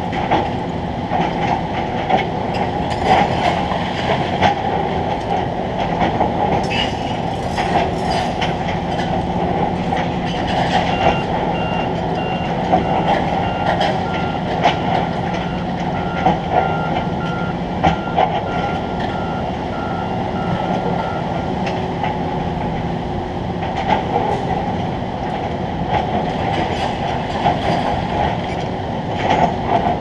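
Construction-site machinery noise: a steady mechanical hum with frequent irregular clanks and rattles, and an electronic warning beeper sounding in repeated short beeps for about ten seconds in the middle.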